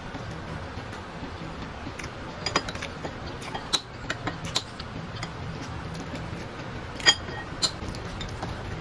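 Eating sounds: a spoon clicking against a bowl several times. The loudest clink, about seven seconds in, rings briefly.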